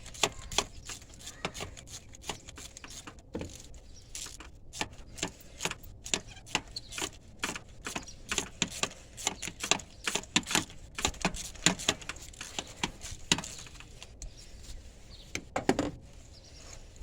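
Hand tools clicking and clinking on the engine, in a rapid irregular series of sharp clicks with short pauses.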